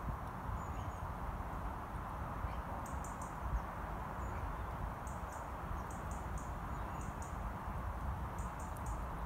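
Countryside ambience: a steady low rumble under short, high bird chirps that come in little clusters now and then.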